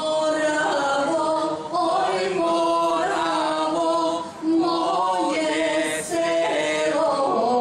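A group of voices singing together without instruments, holding long notes that shift in pitch every second or so.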